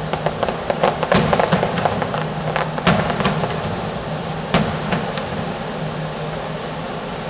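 Distant fireworks bursting: a quick run of sharp cracks and pops over the first three seconds, with louder bangs about a second in, near three seconds and past four and a half seconds, then thinning out. A steady low hum runs underneath.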